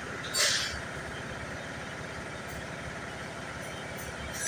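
Electrolux front-loading washing machine running its spin cycle, a steady mechanical hum. A short hiss about half a second in.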